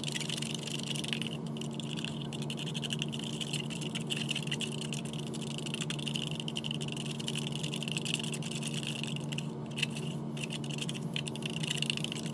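Wet plaster being stirred in a plastic cup, with soft scraping and ticking. Behind it a steady high-pitched trill that breaks off briefly twice, over a low steady hum.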